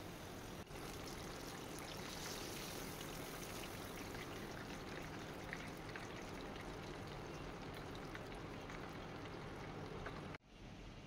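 Hot oil sizzling and crackling steadily around breaded chicken pieces deep-frying in a pan, with many small pops; it cuts off abruptly near the end.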